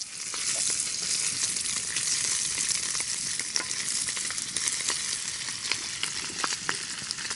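Bacon sizzling in a skillet over a campfire: a dense steady hiss with scattered sharp pops of spitting fat.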